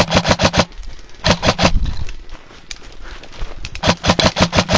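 Airsoft gun firing full-auto bursts of rapid shots at about ten a second: one burst ending just after the start, a short one about a second and a half in, and a longer one from about four seconds in.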